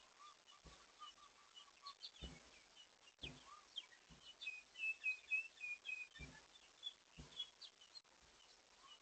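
Faint chirping and calling of several small birds, with a quick loud run of chirps about halfway through. Short soft low thumps come roughly once a second throughout.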